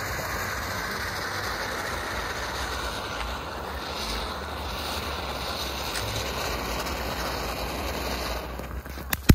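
Ground fountain firework spraying sparks with a steady hiss. Sharp crackling pops start near the end.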